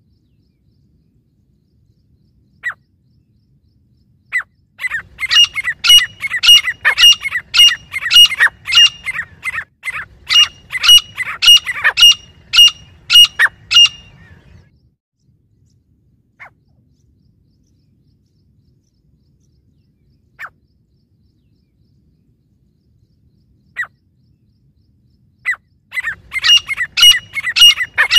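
Grey francolins calling: a loud run of sharp, ringing notes repeated about three times a second for some ten seconds, then lone short notes every few seconds, and a second run beginning near the end.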